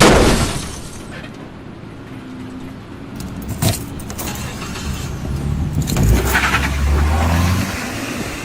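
A sudden loud crash, then rattling and clinking and a vehicle engine running.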